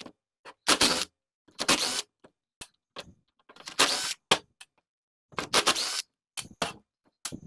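A driver backing out the Torx screws that hold the cylinder of a Husqvarna 142 chainsaw engine: four short rasping bursts of about half a second each, with small clicks of metal between them.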